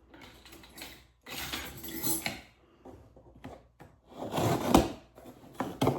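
A delivery package being opened by hand: bursts of rustling and scraping of the packaging, with a few knocks as the contents are handled.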